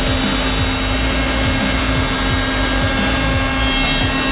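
SDC-1200-3-3 three-head CNC mortising machine running, its router spindles cutting mortises into wooden workpieces with a steady machine whine.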